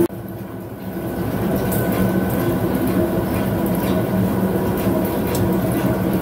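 Vertical turning lathe cutting the edge of a thin 8 mm steel plate on a separator drum: a steady machine hum with the noise of the tool in the cut. The cut is run at lowered speed so that the thin plate does not vibrate. Quieter for about the first second, then steady.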